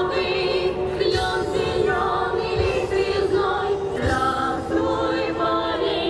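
A group of voices singing a song through microphones and loudspeakers, women's voices among them, with long held notes.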